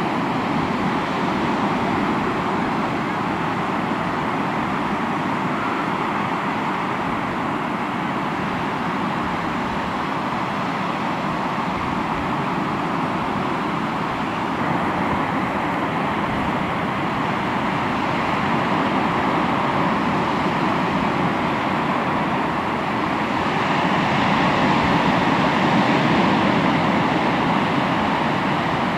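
Sea waves washing on the shore, a steady rushing surf that swells louder for a few seconds near the end.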